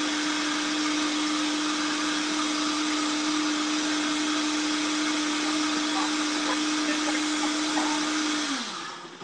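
Vitamix blender motor running steadily as it blends an oil-and-vinegar herb dressing, then switched off near the end, the motor's pitch dropping as it spins down to a stop.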